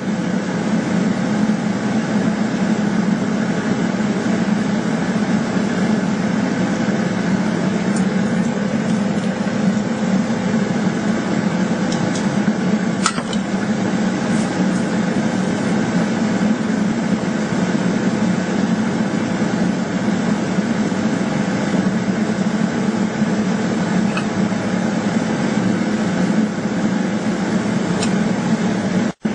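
Steady noise of a running machine, with a few faint clicks, briefly cut off just before the end.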